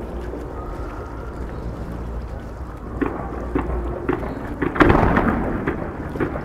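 Fireworks going off: a steady low rumble of shell bursts, then sharp bangs and crackling from about three seconds in. The loudest burst comes about five seconds in and dies away.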